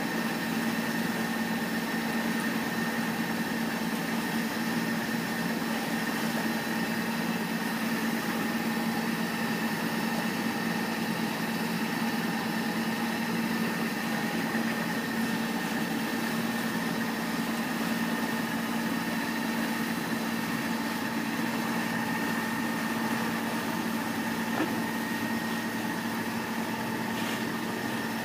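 A sailboat's inboard diesel engine running at a steady speed, a constant hum that does not change, over a steady rush of water and wind.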